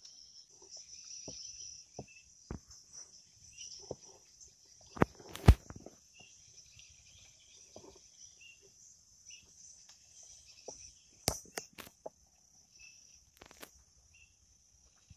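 Insects chirring steadily in a high, even band, with scattered sharp knocks and rustles over it: the loudest a pair about five seconds in and a quick cluster just past eleven seconds.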